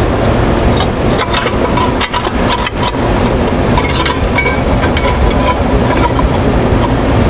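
Steady loud rumble of running industrial plant machinery, with scattered short metallic clicks and taps from hand work on a stainless pump casing and its clamp, mostly between one and four seconds in.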